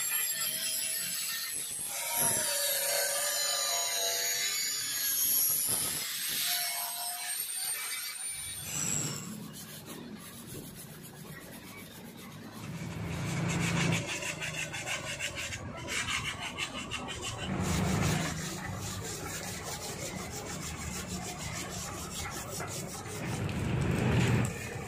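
Electric angle grinder cutting into the steel Vespa body, its whine rising and falling with the load, for about the first eight seconds. After that comes hand scrubbing of the wet body with detergent water, a rasping stroke-by-stroke sound, with water splashing near the end.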